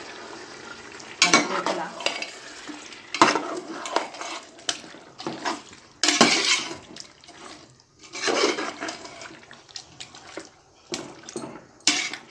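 A metal spoon stirring and scraping thick chicken masala against the sides and bottom of a metal pot, in about six strokes a couple of seconds apart. A steady frying hiss runs between the strokes.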